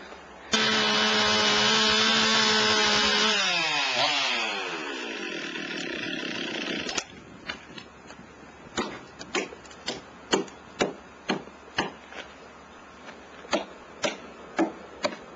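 A power tool runs at a steady speed for about three seconds, then winds down with its pitch falling, and stops abruptly. After that come sharp knocks on wood at roughly two a second, with a short pause partway.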